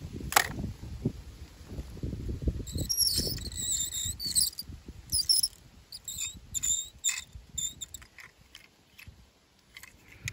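A die-cast toy car clinks as it is dropped into a wicker basket of other toy cars. Rustling and handling noise follow, then a run of short, high chirps.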